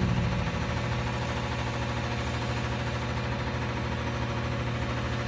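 Front-loader garbage truck's engine idling steadily.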